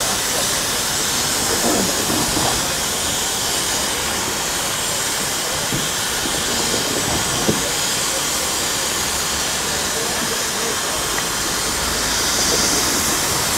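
Steady, loud hiss of steam escaping from standing steam locomotives.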